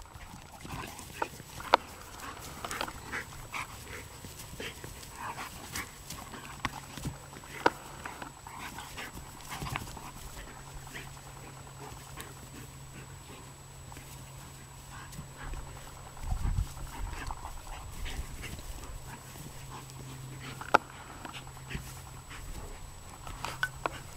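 Two young dogs play-fighting, with scattered short, sharp dog sounds and scuffling. A few louder sharp sounds stand out, near two seconds in, around eight seconds and near twenty-one seconds. A low steady hum runs underneath from about six seconds in.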